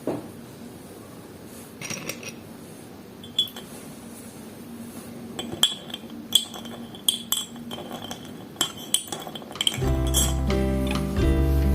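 Kitchen utensils clinking against dishes: a series of sharp clicks with a short ring, coming faster in the middle. Acoustic guitar music comes in near the end.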